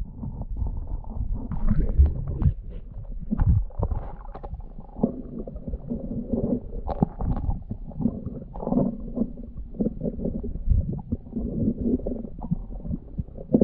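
Muffled underwater sound picked up by a submerged action camera: a low rumble of moving water with irregular knocks as gloved hands handle bones and gravel on the riverbed.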